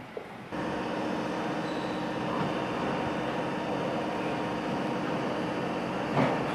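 London Underground 1983 Tube Stock train running: a steady rushing noise with a few faint steady tones. It starts suddenly about half a second in, and there is a short, loud clank near the end.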